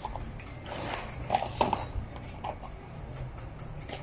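A few soft clicks and taps as a German shepherd noses and licks at a small lidded plastic condiment cup on a wooden floor, trying to get it open, over a steady low room hum.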